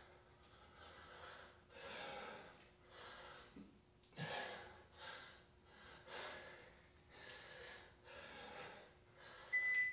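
A man breathing hard and rhythmically while doing push-ups, a faint puff of breath about once a second. A short electronic beep sounds near the end.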